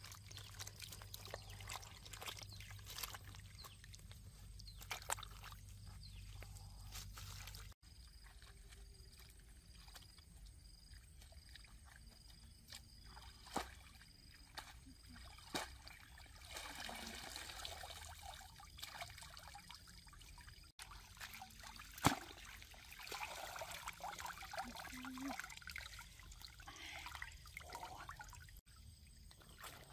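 Water trickling and sloshing, with scattered sharp clicks and knocks; the sound drops out briefly three times.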